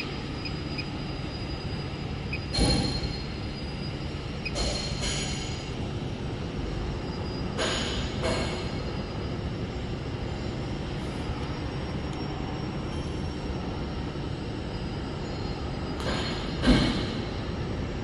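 Slitter rewinder humming steadily, with a handful of short scraping knocks as the slitting knife holders on the shaft are handled; the loudest knock comes near the end.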